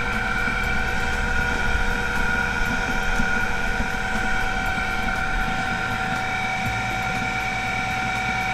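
GFE Type 40 screw oil extraction press running under load: a steady whine from its motor and gearbox over an uneven low rumble as the screw presses oil out of a polyurethane foam oil cake.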